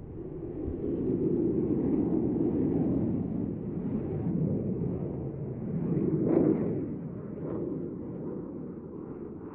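Eurofighter Typhoon's twin Eurojet EJ200 turbofans passing overhead with a deep jet rumble. It swells about a second in, is loudest just after six seconds in, then eases off.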